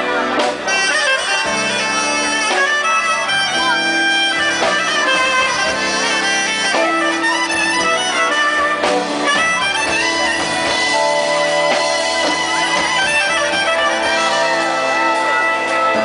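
Soprano saxophone playing a lyrical melody with held, bending notes over a live band with drums and guitar.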